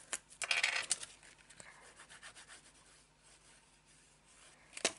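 Folded paper pieces rustling and rubbing as they are handled, one brief rustle about half a second in, followed by faint light taps and a few small clicks near the end.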